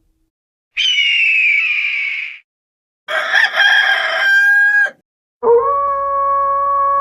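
Three separate cartoon sound effects with short silences between them. The first is a harsh, screechy cry that falls a little in pitch. The second is a rooster crowing, rough at first and then a held note. The third is a long, steady held call that starts about five and a half seconds in.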